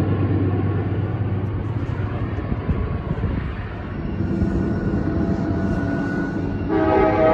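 Double-stack intermodal freight train rolling past at close range: a steady low rumble of wheels and cars on the rails. Near the end a diesel locomotive's multi-note air horn starts sounding a long chord, louder than the rumble.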